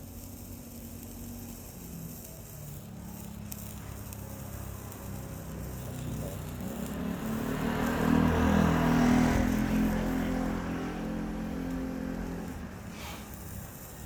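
A motor vehicle passing by: its engine grows steadily louder, is loudest about two-thirds of the way through, then fades away.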